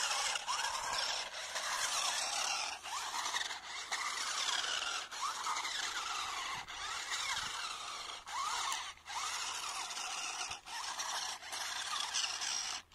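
A 1/16 scale 4WD rock crawler RC car's electric motor and gearbox whining as it drives, the pitch rising and falling as the throttle is worked. The sound cuts out briefly many times along the way.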